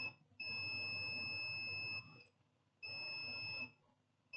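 Multimeter continuity beeper sounding in steady high-pitched beeps, one long and one shorter, as the probes touch the motherboard test point: the sign of a short circuit still present on the laptop's board.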